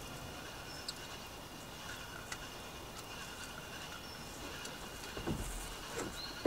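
Quiet riverside background with a few short, faint bird chirps and occasional small clicks from a spinning rod and reel being handled.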